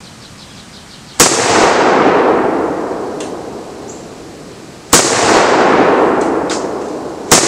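Three 12-gauge blank shots from the AK-pattern semi-automatic shotgun built into an OT-64 APC's turret cannon: one about a second in, one near five seconds and one just before the end. Each sharp report is followed by a long echo that dies away over two to three seconds.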